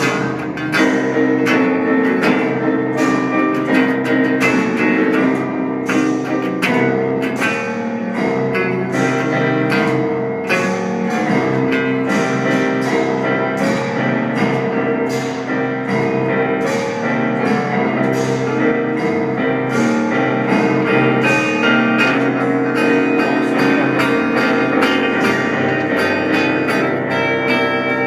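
Improvised instrumental music played live by a small group of musicians: a dense, continuous texture of quick note attacks over held notes.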